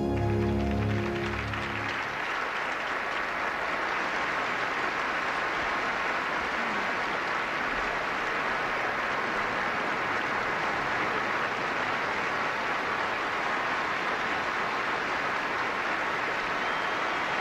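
A held orchestral and sung chord dies away in the first second or two, then a large audience applauds steadily.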